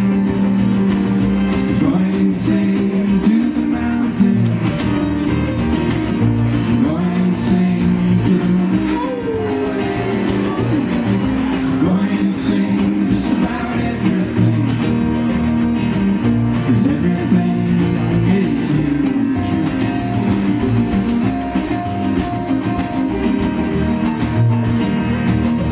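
Acoustic string band playing live: strummed acoustic guitar, banjo, fiddle and upright bass, with singing.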